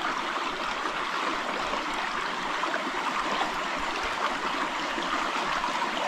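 River water flowing, a steady rushing that does not change.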